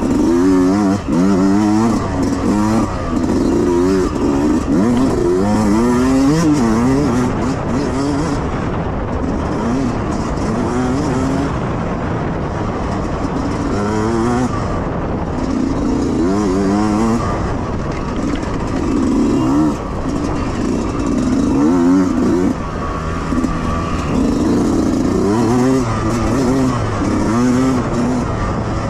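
Yamaha YZ125X 125cc two-stroke single-cylinder dirt bike engine revving hard, its pitch climbing and dropping again and again as the throttle is opened and closed through the trail's turns and bumps.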